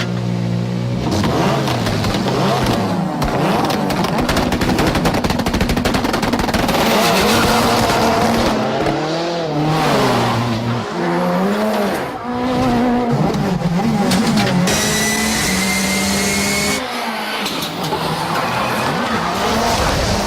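Ford Fiesta rally car engine revving hard, its pitch climbing and dropping again and again through gear changes, with rapid crackling throughout. A high steady whine joins in for about two seconds, two-thirds of the way through.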